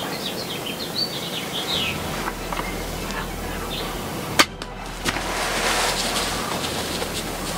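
Birds chirping, then a single sharp snap of a bow shot a little past halfway, followed by the hit turkey's wings flapping and thrashing in the grass.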